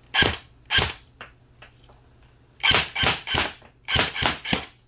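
Matrix custom M4 electric airsoft rifle on a 9.6 V NiMH battery firing single shots on semi-auto, eight sharp cracks in all. Two come about half a second apart, then after a pause two quick runs of three at about three shots a second, with a few faint ticks between them.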